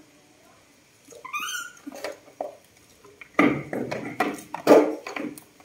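Baby monkeys squealing as they squabble: one high call about a second in, then a louder run of squeals mixed with knocks and scuffling from about three and a half seconds, loudest near five seconds.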